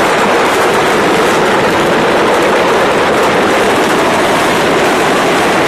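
A steady, loud rushing noise with no separate bangs.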